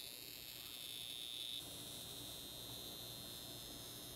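NuDerma high-frequency skin wand buzzing faintly with a steady high whine over a low hum, its glass neck electrode glowing against the skin. The whine drops in level about a second and a half in.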